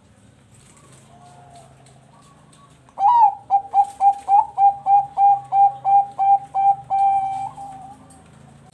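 Zebra dove (perkutut bangkok) singing: a soft coo, then about three seconds in a loud, rapid run of clipped cooing notes, about four a second, ending in one longer drawn-out coo.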